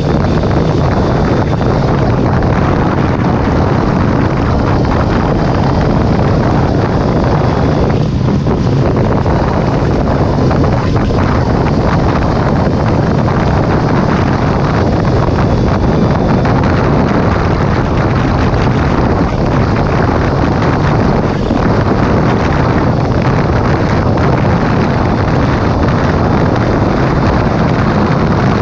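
Steady wind rushing over the microphone of a motorcycle at road speed, with the bike's engine and tyre noise underneath.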